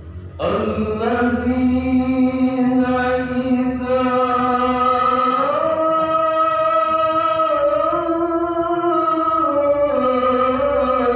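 Male qari reciting the Quran in the melodic tilawah style, drawing out one long unbroken phrase that begins about half a second in and steps up in pitch about halfway through.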